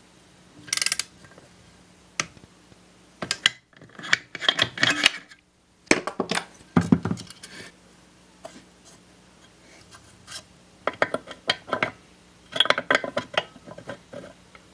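Metal engine parts and a hand tool clinking, clicking and scraping in scattered short bursts with quiet stretches between. First a socket wrench works on a connecting-rod bolt, then the camshaft gear is fitted into the aluminum crankcase of a 1958 Briggs & Stratton Model 6B engine.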